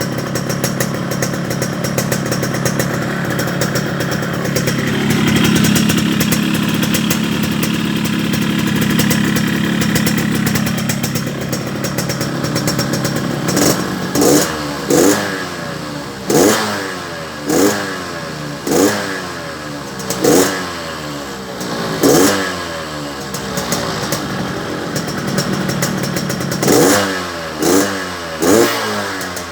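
Motorcycle engine with a Medan-style tune, idling fast with a crisp, raspy ('garing ngorok') exhaust note, then blipped about ten times in quick revs that drop back after each one from about halfway through.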